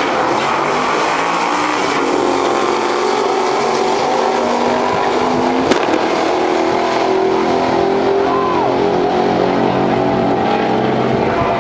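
Two drag cars, one a 2013 Shelby GT500 with its supercharged V8, running a quarter-mile pass at full throttle, the engine notes climbing and stepping up through the gear changes as the cars pull away down the track.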